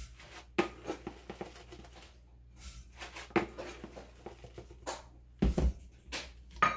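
Metal half-cup measure scooping dry rolled oats from a plastic canister and pouring them into a glass bowl: short dry rustling pours and scrapes with light clicks, and a couple of louder knocks with a thump about five and a half seconds in.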